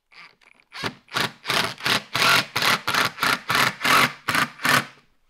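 Cordless Ridgid 18V impact driver running in a rapid series of short bursts, about three a second, driving the mounting screws of a ski binding's toe piece into the ski.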